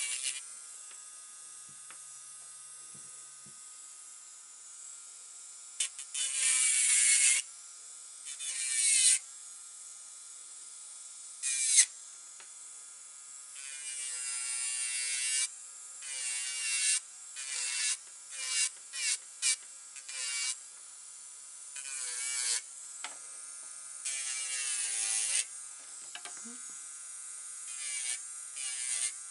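Electric nail drill running with a steady high whine, its sanding bit grinding against artificial nails in repeated passes. Some passes last a second or so and others are quick touches.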